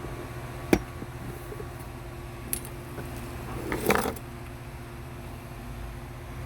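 Hard plastic clicks and a brief rattle as a car's glove box is squeezed in at the sides to free it from its stops: a sharp click under a second in, a lighter click near the middle and a short rattle around four seconds in, over a steady low hum.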